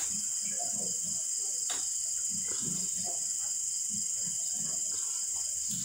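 Steady high-pitched insect chorus, like crickets trilling, with a single soft click about two seconds in.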